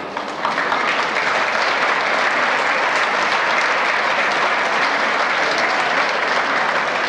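Audience applauding: dense, steady clapping that swells in the first half-second and then holds.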